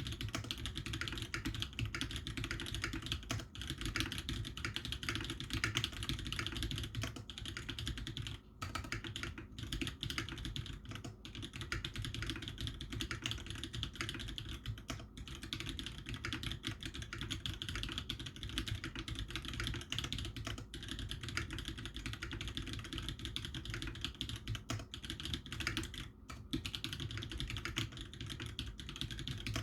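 Continuous fast typing on a TX65 v2 custom mechanical keyboard fitted with Holy Panda tactile switches. There are brief pauses about eight and twenty-six seconds in.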